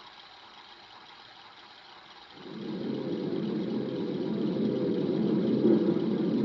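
Yamaha keyboard's car-engine sound effect. After about two seconds of faint hiss, a noisy engine-like rumble starts suddenly and grows steadily louder.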